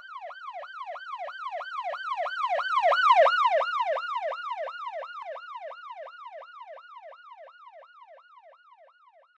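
Emergency-vehicle siren in a fast yelp, a quick pitch sweep repeating about three times a second. It swells to its loudest about three seconds in, then fades away.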